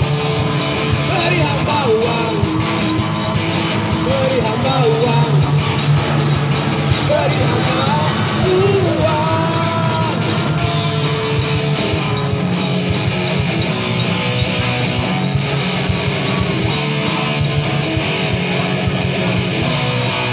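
Live rock band playing with electric guitars and drums. Voices sing along over it in roughly the first half, then the guitars carry an instrumental passage.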